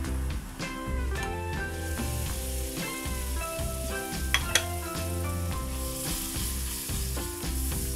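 Sliced onions and masala frying in oil in a wok, sizzling and being stirred, over background music. Two sharp knocks come about halfway through, and the sizzling hiss grows in the second half as coconut paste goes into the oil.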